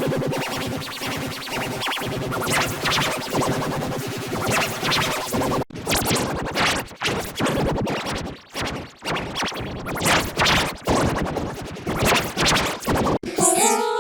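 Heavily effect-processed children's song music with a rapid stuttering, scratch-like chop; about six seconds in it breaks into irregular choppy fragments, and near the end it cuts off abruptly and a clean, simple synth melody starts.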